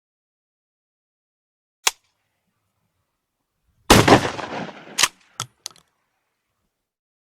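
A sound effect made of separate sharp hits: a single click, then about two seconds later a loud gunshot-like blast with a rushing tail, followed by a sharp crack and two small clicks.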